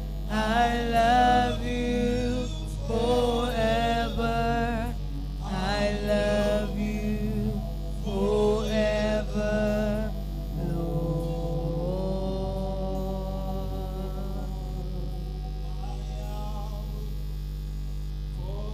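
A small mixed group of men and women singing a worship song into microphones in phrases of a few seconds. About eleven seconds in they hold one long note that then fades away, leaving a steady electrical hum from the sound system.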